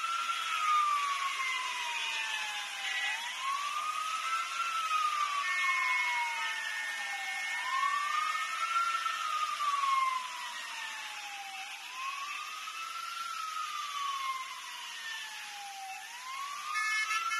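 A siren wailing slowly, each cycle a quick rise and then a long fall, repeating about every four seconds over a steady hiss.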